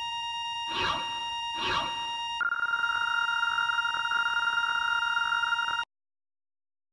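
Steady electronic tone with many overtones, broken by two short bursts about a second apart; a second, higher tone joins about two and a half seconds in, the sound gets a little louder, and both stop abruptly near the end.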